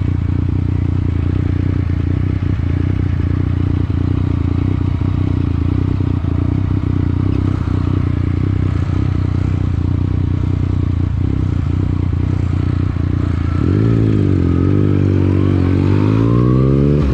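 Motorcycle engine running at a steady speed while riding. About fourteen seconds in, the engine note dips and then climbs as it revs up again.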